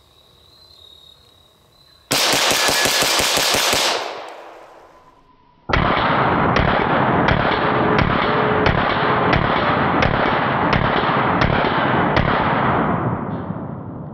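Gunfire from a Glock 24 long-slide pistol in .40 S&W. About two seconds in comes a dense two-second burst of loud cracks that dies away. A second or two later a longer stretch of continuous loud shooting noise starts, with a sharp crack about every two-thirds of a second, and fades near the end.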